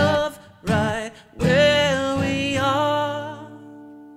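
A man singing a ballad's last line to strummed acoustic guitar, in three short phrases, then a held final note and chord that ring on and fade away in the last second or two.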